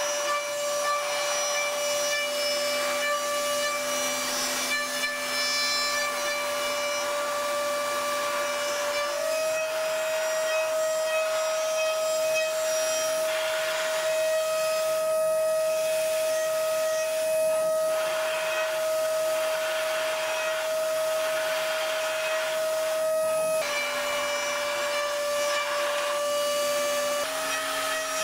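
A machine tool's motor running with a steady high-pitched whine over a cutting hiss. The whine steps up slightly in pitch about a third of the way in, drops back later, and rises again near the end.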